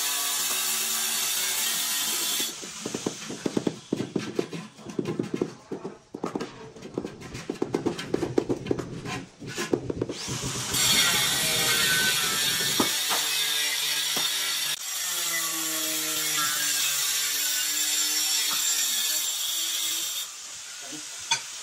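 A rubber mallet rapidly tapping a ceramic plank tile to bed it into the mortar: a long run of dull knocks from about two and a half seconds in until about halfway. Before and after the tapping, a steady hiss with a faint hum.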